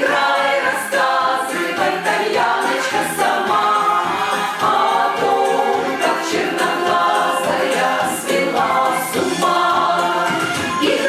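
Vocal ensemble singing a song together in harmony, at a steady level with notes changing every half second or so.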